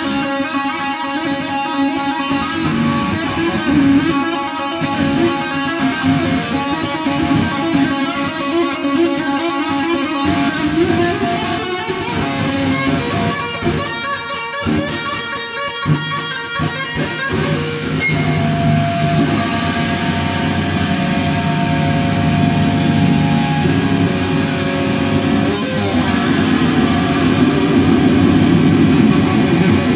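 Electric guitar played as noise rather than a tune: dense, ringing tones throughout. About two-thirds of the way in they settle into a steady drone that grows a little louder near the end.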